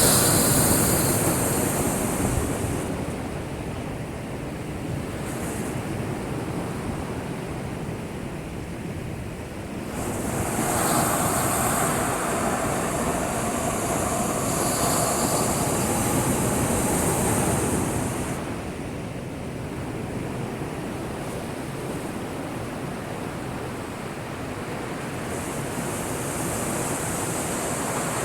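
Heavy surf from a typhoon swell, waves breaking and washing in a continuous rush. The rush surges loudest at the start, again for several seconds from about a third of the way in, and once more near the end.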